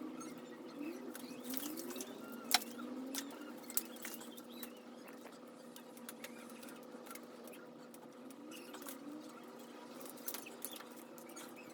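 Small clicks, ticks and rustling of a car's engine wiring loom being handled and stripped down by hand: plastic plugs and wires tapping together, with a sharper click about two and a half seconds in. A faint steady hum runs underneath.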